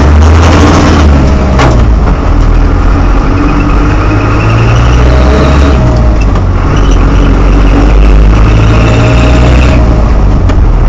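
Land Rover Series IIA running steadily, with a chirping, squealing note that comes and goes in cycles every few seconds over the engine rumble: the unexplained cyclic squeal the owner is chasing.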